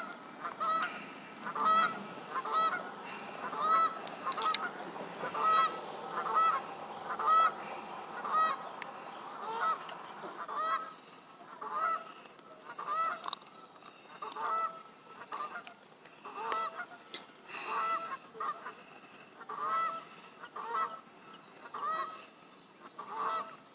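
Geese honking over and over, about one to two honks a second.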